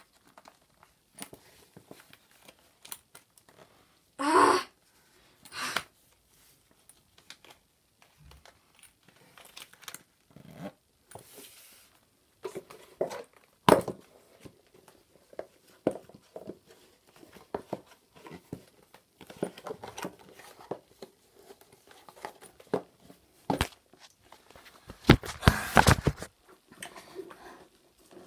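Handling noise of black leather heeled ankle boots being pulled on: scattered rustling of leather and clothing and light knocks on a wooden floor, with rasping boot zippers being run about four seconds in and again, loudest, near the end.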